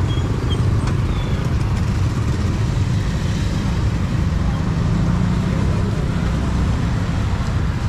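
Motor scooter engine running close by, a steady low rumble, with street traffic around it.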